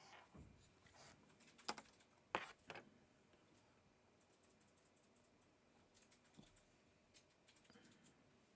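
Near silence with a few faint clicks and taps, two sharper ones in the first three seconds: small PC hardware being handled as the CPU water block is set down onto the thermal-pasted CPU.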